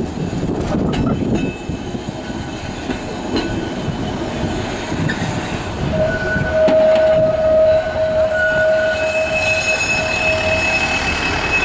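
Blackpool single-deck tram running along the track with a low rumble, then its wheels start a steady high-pitched squeal about halfway through as it rounds a curve, several squeal tones sounding at once.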